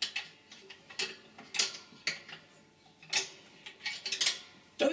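Irregular sharp metallic clicks and taps of hand tools and bolts being handled on the cylinder head of an air compressor as the head bolts are taken out, about one or two a second.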